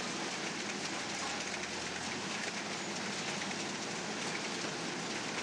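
Chile pepper cleaning machine running with a load of peppers on its rotating rollers: a steady, even rushing noise with no rhythm or pitch.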